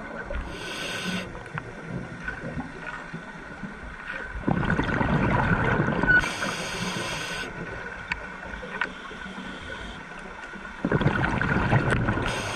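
Scuba diver breathing through a regulator underwater. Two long, loud exhales of gurgling bubbles come about four and a half and eleven seconds in, with brief hissing inhales around them.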